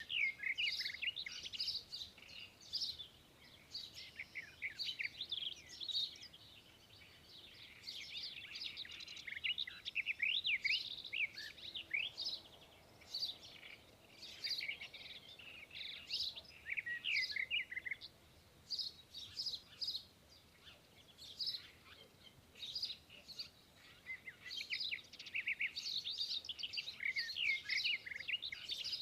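Small birds chirping and calling: many rapid, overlapping high chirps and short sweeping notes, with brief lulls between flurries.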